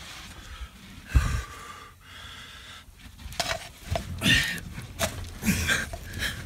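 Hard breathing mixed with scraping and shuffling on rock and gravel, made by someone crawling through a low cave passage. The strokes come irregularly and get busier and louder after about three seconds.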